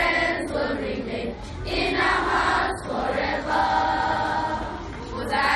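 Girls' school choir singing together in unison, with a long held note in the second half.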